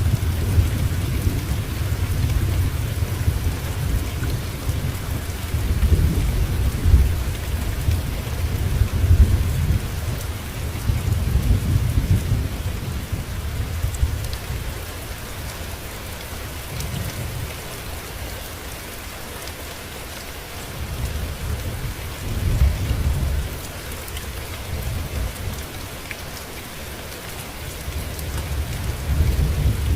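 Steady rain hissing, with thunder rolling low underneath. The rumbling is strong for the first half, dies down in the middle, and swells again briefly about two-thirds through and near the end.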